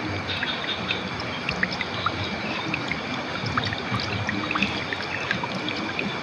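River water flowing and splashing over rocks: a steady rush with many small bubbling, trickling plops scattered through it.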